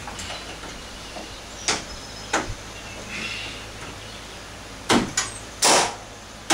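Aftermarket plastic grille being pushed and knocked into a Chevy Trailblazer's header panel: two single knocks in the first half, then three louder knocks close together near the end. The clips are meant to pop right in but are not seating easily.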